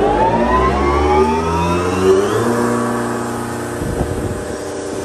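Gardner Denver 75 hp water-cooled rotary screw air compressor starting up: the whine of its 75 hp three-phase electric motor and screw airend rises in pitch as it spins up over the first two to three seconds, then settles into a steady run. A short knock comes about four seconds in.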